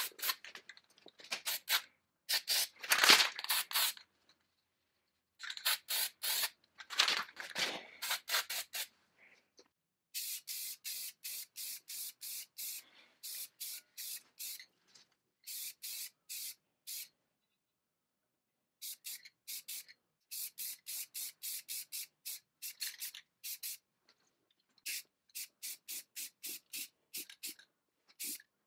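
Aerosol spray paint can hissing in rapid short bursts, about three or four a second, with a louder rush about three seconds in and a few pauses.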